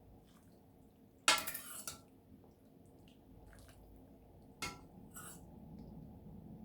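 Dishes and utensils clattering during breakfast preparation: one sharp clink about a second in that rings briefly, then a smaller knock and a short scrape later on.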